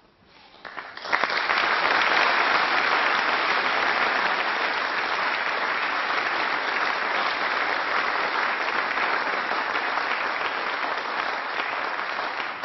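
Sustained applause from a chamber full of members. It builds within the first second and holds steady, easing slightly near the end.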